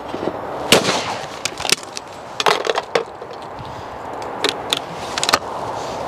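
A single shot from a Blaser F16 over-and-under shotgun about three-quarters of a second in, followed by several lighter metallic clicks and knocks of gun handling, as the gun is opened, reloaded and closed between pairs of clays.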